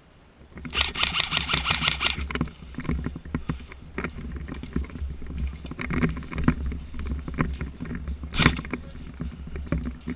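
A rapid full-auto burst from an airsoft gun about a second in, lasting about a second and a half. It is followed by irregular clicks and knocks of movement and one single sharp crack near the end, over a steady low rumble.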